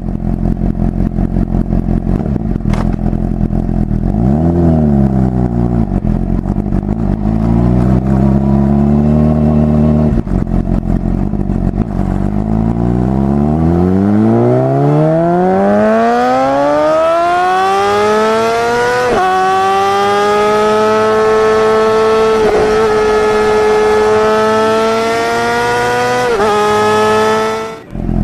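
Motorcycle engine sound revving: throttle blips at low revs, then from about halfway a long climb in pitch that levels off high, with a few short dips like gear changes, before it cuts off abruptly near the end.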